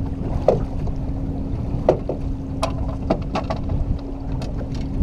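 Wind on the microphone and choppy water lapping against a fishing boat's hull, under a steady low hum. Several short knocks and splashes come through it as a long-handled landing net is worked in the water beside the boat.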